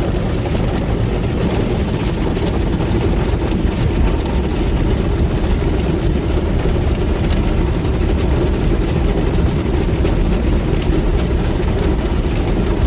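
Automatic car wash running over the car, heard from inside the cabin: a loud, steady rumble of spraying water and wash machinery.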